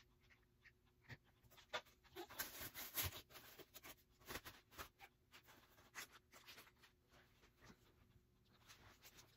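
Faint rustling and scattered clicks of a Chicco stroller's fabric canopy and plastic frame being handled and pushed back, densest around the middle.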